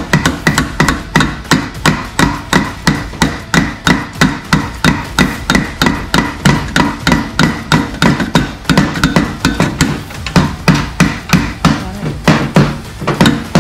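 Steady, rapid hammer taps on a Harley's Vance & Hines big radius exhaust pipe, about four a second, with a faint metallic ring, tapping the pipe to work a stuck baffle loose.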